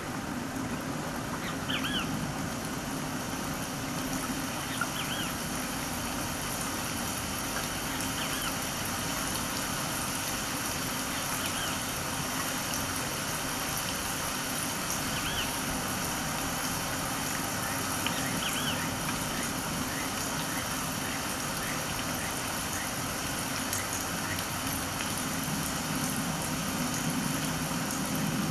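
Steady ambient hum and hiss with no change, overlaid by scattered short high chirps, including a quick run of them about two-thirds of the way in.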